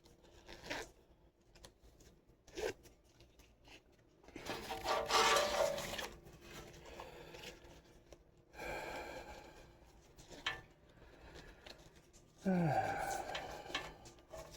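Nylon chest rig being handled and its straps adjusted: fabric and webbing rustling and scraping in three longer bursts, with a few sharp clicks in between.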